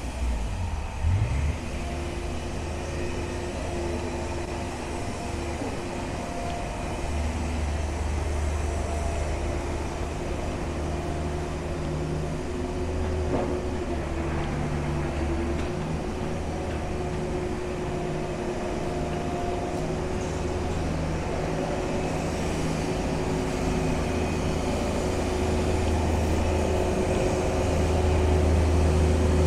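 Steady low mechanical drone of vehicles in a city street, with several held humming tones over it, growing a little louder near the end.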